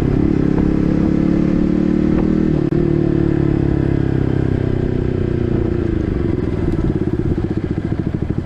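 Yamaha MT15's single-cylinder engine through an SC Project full-system exhaust, running at steady revs with a brief cut in sound near a third of the way in. About six seconds in the throttle is rolled off and the revs fall, the exhaust note slowing into separate pulses.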